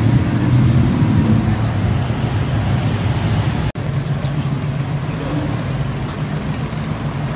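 Lamborghini V12 engine rumbling steadily at low speed as the car pulls away. After a brief dropout a little past halfway, a Lamborghini Gallardo's V10 rumbles steadily at low speed, with no hard revving.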